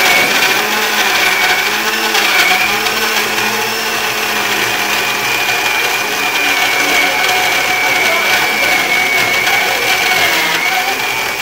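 Small countertop electric blender running steadily, blending an avocado shake, with a high whine over its motor noise.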